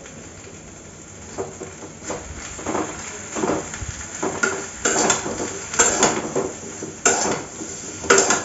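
Metal spatula scraping and clattering against a metal pan as chopped vegetables are stirred and tossed to mix in the masala, in a run of irregular scrapes that grow louder about halfway through.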